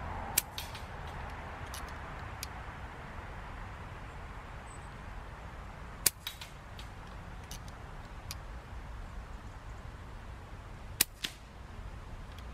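Three shots from an FX Impact Mk1 .177 PCP air rifle, about five seconds apart, each a sharp crack followed by a few fainter clicks.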